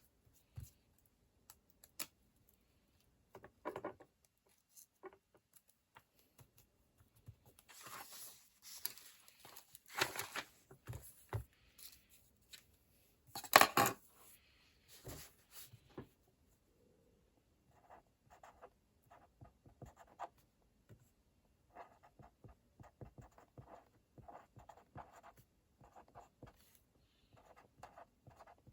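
Close-up stationery sounds of a paper planner being worked on: scattered taps and paper rustles, a short, louder rasp of paper or sticker sheet about halfway through, then a run of light scratchy strokes like a pen writing on paper.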